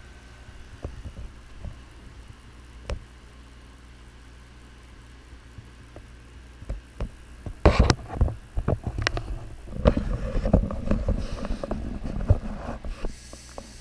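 Clicks, knocks and rustling of a head-mounted magnifier visor being put on and adjusted, densest in the second half, over a steady low hum.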